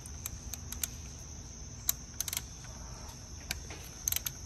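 Ratchet wrench clicking as a 10 mm ignition coil hold-down bolt is loosened: scattered sharp clicks, with quick little runs of them about two seconds in and near the end.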